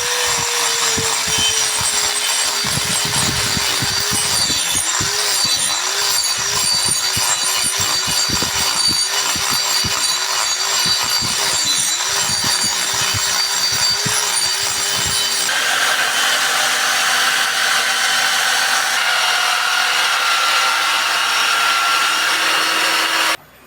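Power tool cutting into wood, its motor hum dipping in pitch again and again as it bogs under load. About two-thirds of the way in, the sound changes to a steadier grinding hiss, then stops abruptly just before the end.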